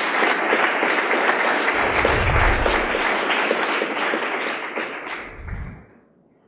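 Audience applauding, a dense clatter of many hands clapping that cuts off about six seconds in. Two low thumps sound under it.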